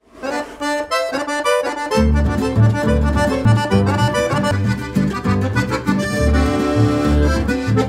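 Accordion-led folk music playing as a theme tune; a bass line with a steady beat comes in about two seconds in.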